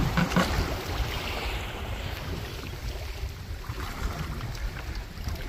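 Wind buffeting the microphone with small waves washing on a sandy shore, a little louder in the first second.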